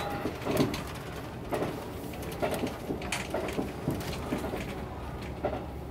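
Cabin running noise of the YUFUIN NO MORI diesel railcar under way: a steady low rumble with irregular clicks and knocks.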